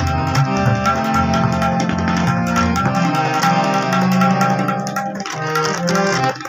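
Tabla played in a steady rhythm over a harmonium holding sustained reed chords: an instrumental passage of a ghazal.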